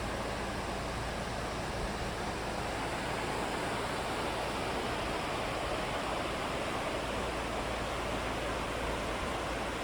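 A river rushing steadily over rocks, a continuous even roar of flowing water.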